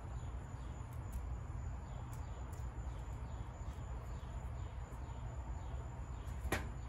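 Outdoor background with a steady low rumble and faint bird chirps, over light clicks of bonsai wire being uncoiled and handled, with one sharper click near the end.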